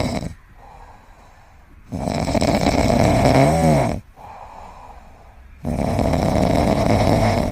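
A sleeping pet snoring: loud snores about every four seconds with quieter breaths between, the middle snore briefly turning into a pitched note.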